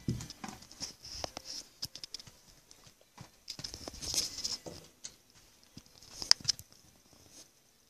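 Small animals scratching and shuffling in a wire cage, with irregular clicks, patters and rustles; one sharp click stands out about six seconds in.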